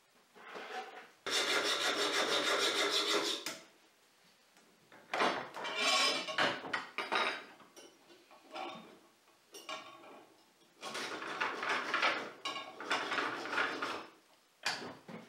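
Hand file scraping across the end of a metal rod held against a wooden workbench, in three runs of strokes a couple of seconds long with short pauses between.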